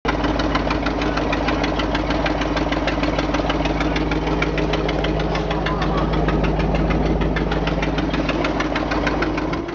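1977 GMC dump truck's engine running steadily, with an even, rapid clatter over a low hum.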